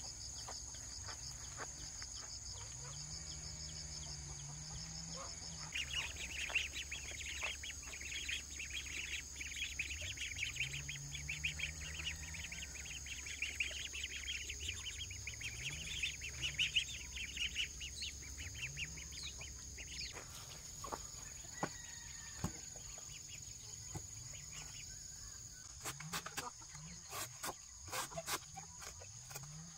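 Chickens clucking, with a steady high-pitched insect drone behind them and a stretch of rapid chirping in the first half.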